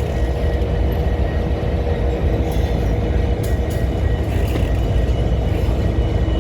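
Long freight train rolling past with a steady low rumble, a faint held tone and a couple of light clicks about three and a half seconds in.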